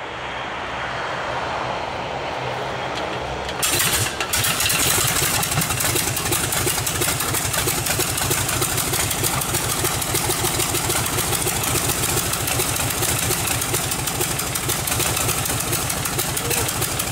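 Polikarpov Po-2's five-cylinder Shvetsov M-11 radial engine being started. A steady whirring is heard for about three and a half seconds, then the engine catches suddenly and runs on with a rapid, even beat of firing pulses.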